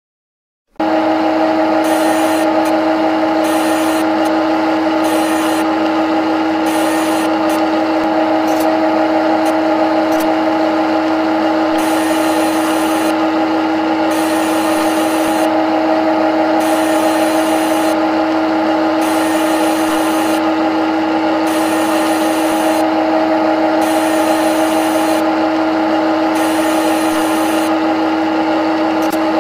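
Simulated CNC lathe sound from a lathe simulator program as it runs a threading cycle: a loud, steady mechanical hum with a strong held tone and flickering hiss above it. It starts about a second in and cuts off suddenly at the end.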